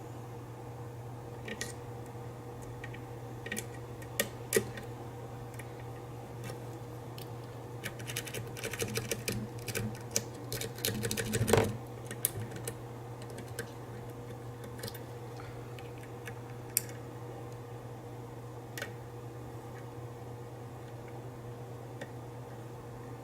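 Lock pick working the pins of a high-security challenge lock: scattered single clicks, then a run of fast clicking about eight to twelve seconds in, over a steady low hum.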